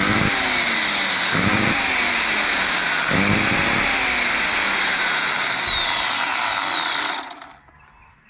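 Ryobi ECS-2040 electric chainsaw's motor running at speed for about seven seconds, its pitch wavering a few times, then switched off and winding down near the end. The motor's brushes are arcing heavily at the commutator, a fault the owner cannot explain.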